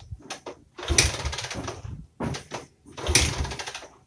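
Bajaj Boxer's single-cylinder four-stroke engine turned over twice by the kick-starter without firing. Each kick gives about a second of rapid chuffing turnover. It is a light crank with the engine not started, after the clutch rebuild and fresh oil.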